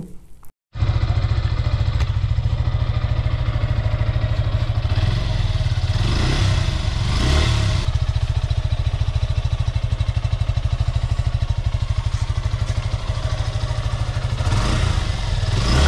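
Suzuki Gixxer FI ABS 2020's single-cylinder engine idling with a steady, rapid exhaust pulse, revved briefly about six seconds in and again near the end. The valve tappets have just been adjusted to cure a tappet noise, and this is the engine's sound after the adjustment.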